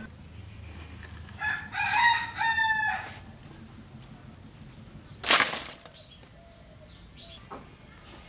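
A rooster crowing once, a call about a second and a half long starting about a second and a half in. About five seconds in there is a short, loud rush of noise.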